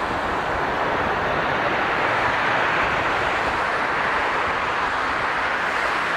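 Jet airliner engine noise at an airport: a steady, loud rushing sound that swells slightly a couple of seconds in, then eases.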